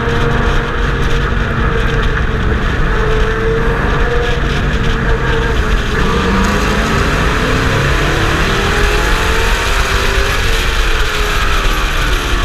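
Pro stock race truck's engine running hard under racing load, heard from a hood-mounted onboard camera over heavy wind and road noise. The engine pitch holds steady at first, then dips and climbs again in the second half as the truck goes through a turn in traffic.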